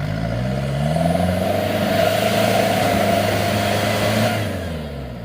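Off-road 4x4's engine held at high revs under load, with a steady pitch. It swells over the first second, holds, and fades away near the end.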